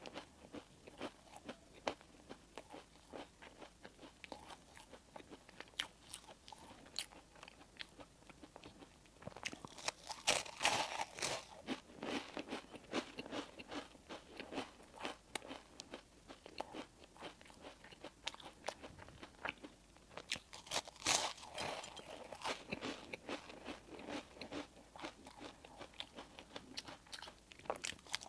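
Close-up eating of bakery bread and pastry: bites and chewing with crisp crunching, growing louder and denser in two stretches about ten and twenty seconds in.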